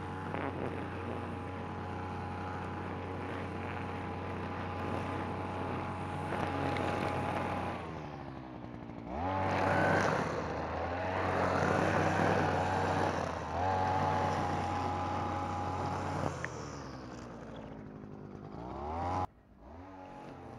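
Two-stroke engine of a NAC-BC520V petrol brush cutter running while its line head cuts long grass. The engine revs up about nine seconds in, holds high with a brief dip, eases off, and revs again near the end before the sound drops sharply to a fainter engine.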